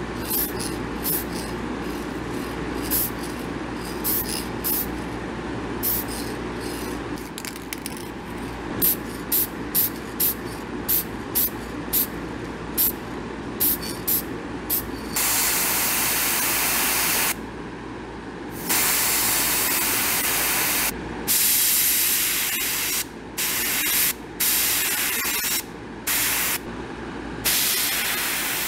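Paint and clear coat spraying onto a wooden lure: many short hissing bursts, then longer passes of about two seconds each in the second half. A steady hum from the spray booth's ventilation fan runs underneath.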